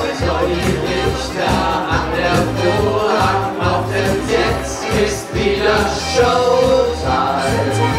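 Several voices singing a song together into microphones over amplified backing music with a steady bass.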